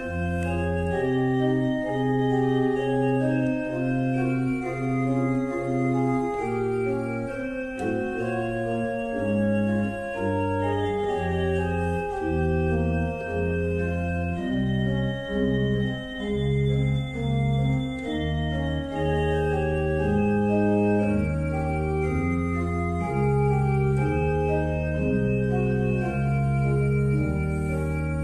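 Organ music: slow, held chords that change about once a second over a stepping bass line.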